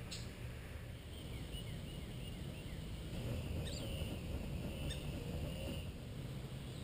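Outdoor ambience: a steady low rumble with a few faint, brief bird chirps scattered through, one sharper chirp about halfway in.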